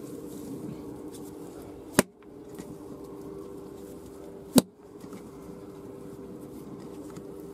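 Dough being kneaded on a stone slab, with two sharp smacks about two and a half seconds apart as it is slapped down, over a steady low hum.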